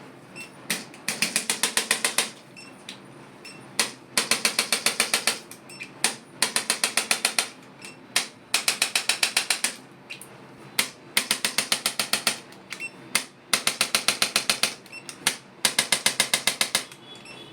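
A clicking mechanism firing in repeated bursts: a single click, then a rapid run of about ten sharp clicks over a second or so, repeating about every two and a half seconds, seven times.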